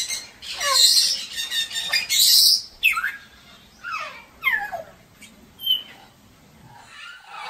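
African grey parrots calling: two loud, harsh screeches in the first two and a half seconds, then a run of short whistles that each fall steeply in pitch.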